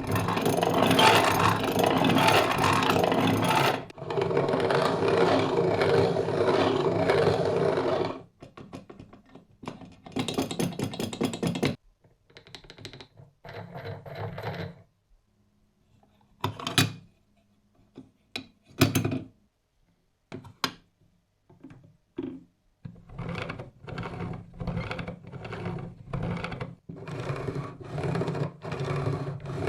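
Antique hand-cranked coffee grinder being turned, its burrs making a scraping, rasping noise: two long stretches, then shorter bursts with separate clicks and knocks, and near the end a regular pulsing at about one stroke a second.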